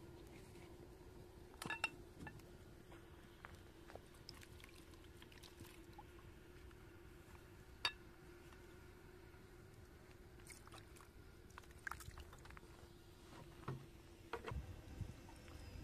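Very quiet scene with a faint steady hum, broken by a few sharp light clicks and knocks as vegetables and a plastic jug are handled around a steel bowl, the loudest about two seconds and eight seconds in, with soft bumps near the end.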